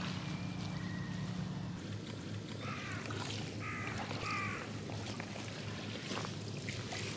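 A bird calling three times, each short call falling in pitch, over a steady low engine hum.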